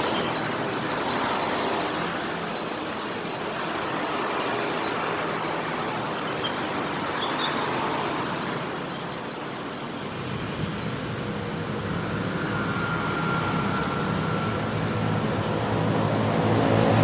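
Steady city street traffic, motorcycles and cars passing. Near the end one engine grows louder with rising pitch as a vehicle approaches and accelerates.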